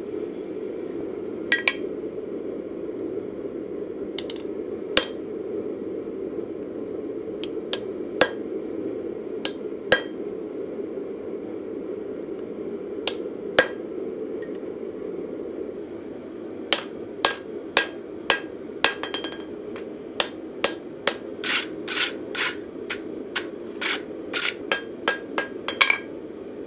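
Hand hammer striking a red-hot steel knife blade on an anvil, with some strikes ringing. Single blows a few seconds apart at first, then a quicker run of about two blows a second in the second half, over a steady rushing noise.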